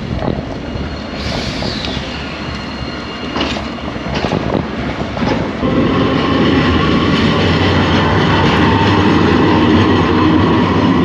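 A street tram running along the street nearby, with the clatter of its wheels on the rails and a few clicks; about six seconds in it grows louder and settles into a steady whine from its wheels and motor.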